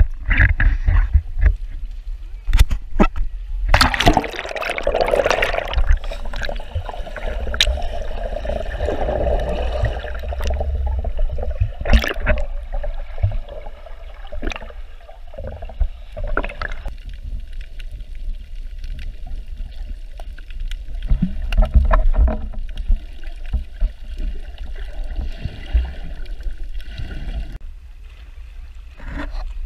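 Water sloshing and gurgling against a GoPro's waterproof housing as it dips under the surface and back out, heard muffled through the case, with a steady low rumble and scattered sharp knocks.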